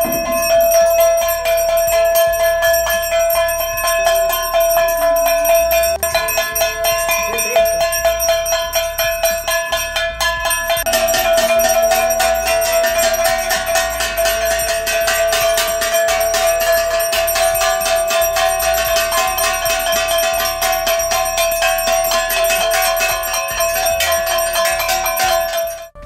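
Puja hand bell rung rapidly and continuously: quick, even strokes over a steady ringing tone. About eleven seconds in the strokes grow denser and more ringing tones join.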